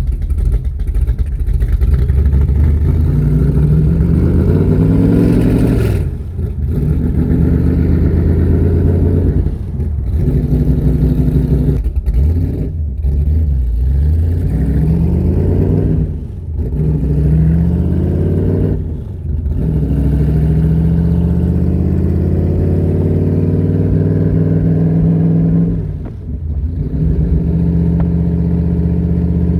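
Factory Five Cobra kit car's engine pulling hard under way, its pitch climbing again and again, broken by about six brief drops in level where the throttle is lifted.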